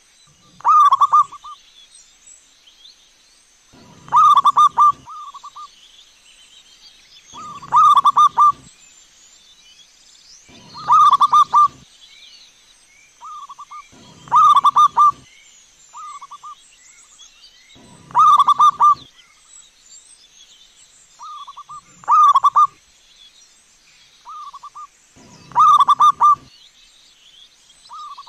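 Zebra dove cooing: a loud rippling phrase of quick staccato coos about every three and a half seconds, eight times, with softer coo phrases in between. Small birds chirp faintly behind, over a steady faint high whine.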